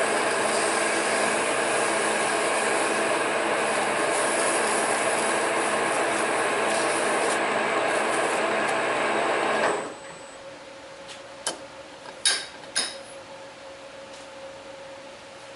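Metal lathe running with a steady scraping rub of tool or file on the spinning work, stopping abruptly about ten seconds in. A few sharp clicks and knocks follow.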